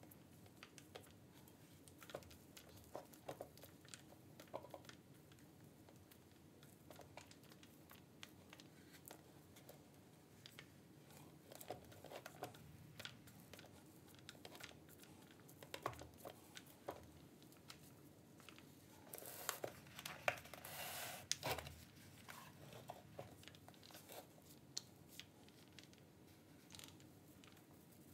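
Quiet handling noise: faint scattered clicks and crinkling of newspaper as a freshly painted cast-iron vise body is moved and turned on a plastic stand, with a brief hiss lasting about two seconds roughly two-thirds of the way in.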